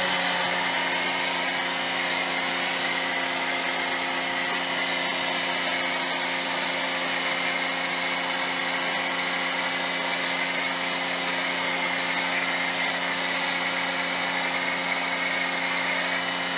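Giraffe Tools Grandfalls electric pressure washer's motor and pump running steadily under load while the trigger is held, with the hiss of an MJJC foam cannon spraying soapy foam. The motor's hum holds one steady pitch and starts to wind down at the very end as the trigger is released and the total-stop system shuts it off.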